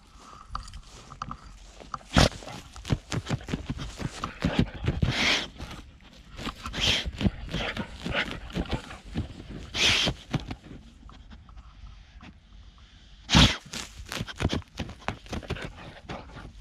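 A dog moving close to the camera: irregular footfalls and knocks with short hissing noises between, and two loud thumps, about two seconds in and again near the end.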